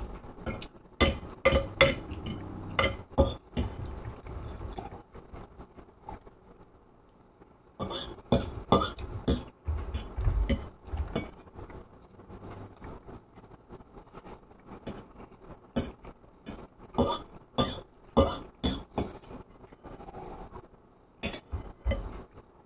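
Cutlery clinking and scraping against a plate while food is eaten quickly from it, in irregular runs of sharp clicks broken by a couple of short pauses.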